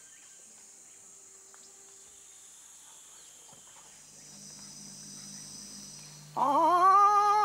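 Rainforest insects buzz steadily at a high pitch. About six seconds in, a man's loud, wavering call imitating an animal cuts in, rising sharply at its start and then held.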